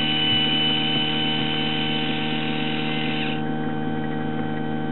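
The small electric motor of a motorized brass ball valve runs with a high whine as it turns the ball open for the ballast fill, stopping about three seconds in. Under it is a steady hum with several pitches.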